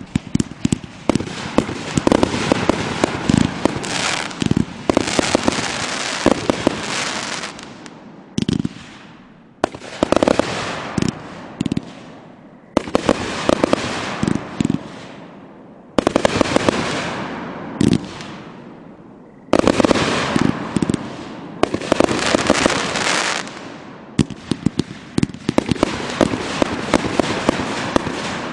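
Aerial fireworks going off in rapid volleys: many sharp pops and bangs with crackling. They come in surges of a few seconds, broken by short lulls.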